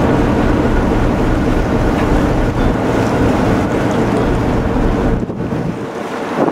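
Wind buffeting the microphone over the steady drone of a harbour cruise boat's engine under way. The low wind rumble eases off about five seconds in.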